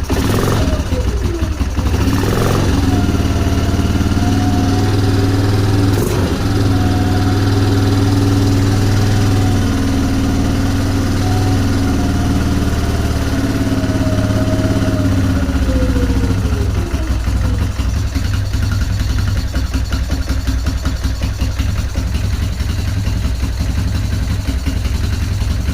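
Yamaha Grizzly 350 quad's single-cylinder four-stroke engine running at low revs to break in a new piston after a top-end rebuild. It runs unevenly with no airbox fitted, which the owner puts down to the missing airbox.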